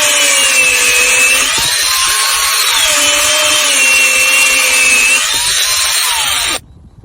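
A power tool running with a loud hiss, its whine dipping in pitch and recovering several times; the sound stops abruptly near the end.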